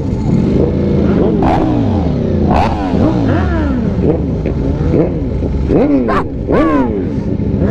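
Several sport-bike engines revving in repeated short throttle blips, each rev climbing and then falling away. A few sharp cracks are mixed in.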